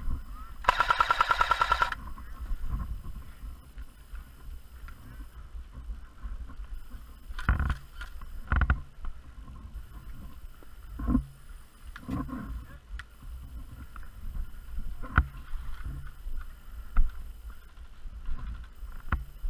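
A&K PKM airsoft electric gun firing a single full-auto burst of about a second, its motor whine and rapid rattle of shots, about a second in. Scattered sharp knocks and clicks follow through the rest.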